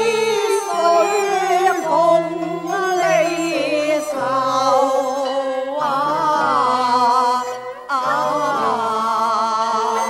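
Cantonese opera duet: sung vocal lines with wide vibrato over a melodic instrumental accompaniment.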